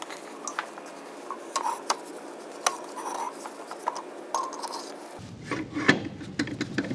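Cast-iron brake drum and hub assembly being slid onto a forklift axle: scattered metal clinks and short scrapes as the splined shaft and wheel studs are worked into the housing.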